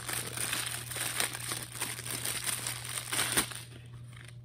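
Clear plastic packaging crinkling and crackling as it is handled and pulled open, with many rapid little crackles. It dies down about three and a half seconds in.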